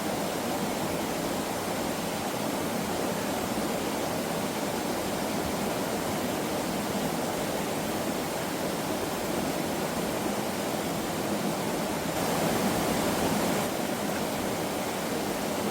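Rushing water of a mountain valley stream, a steady noise that swells a little louder and brighter for about a second and a half near the end.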